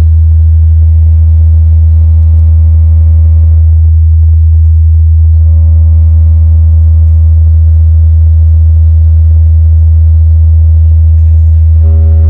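Large carnival sound system's subwoofers playing a loud, steady low bass tone, a sound check. Fainter higher overtones drop out for about a second and a half about four seconds in, then return and grow stronger near the end.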